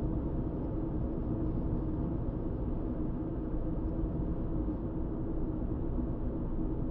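Car driving at steady road speed: continuous engine and tyre noise with a constant low drone.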